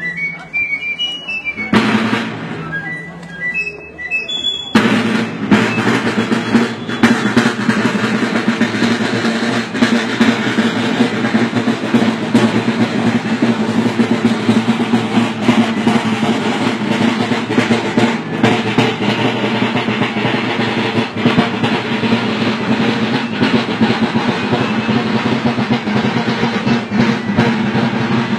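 Marching snare drums playing a continuous cadence with drum rolls, starting about five seconds in after a few high melodic notes.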